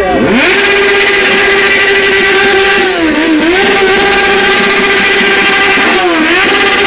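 Motorcycle engine revved up sharply, then held at high, steady revs, dipping briefly twice and climbing back each time.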